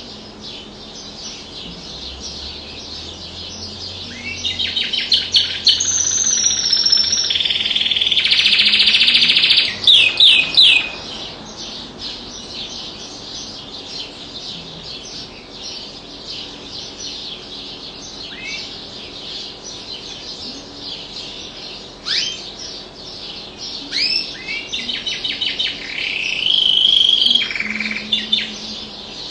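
Domestic canary singing a long, continuous song of rapid trills and rolling phrases, loudest about four to ten seconds in and again near the end, with quick downward-sliding whistles in between.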